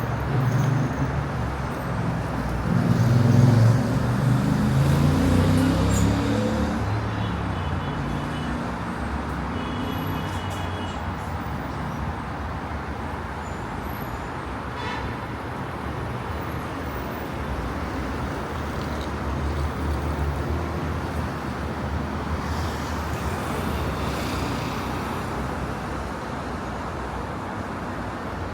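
Road traffic on a city street: a steady wash of passing vehicles, with one louder engine rumbling past about three to six seconds in.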